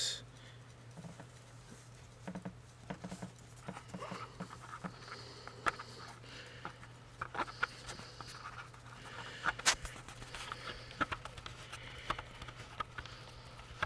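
Faint, scattered clicks and soft rustles of fingers handling a Pokémon trading card, over a low steady hum.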